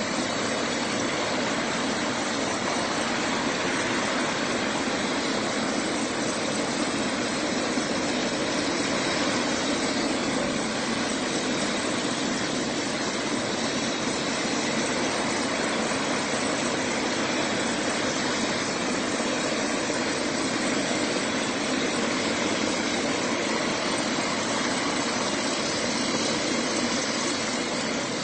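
Bell 407 helicopter running on the pad with its main rotor turning, a steady, even turbine-and-rotor sound that does not build or change, not yet lifting off.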